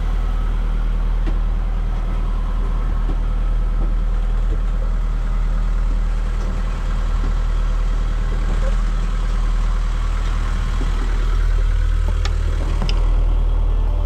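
Boat engine running at a steady speed, a constant low hum with no change in pitch.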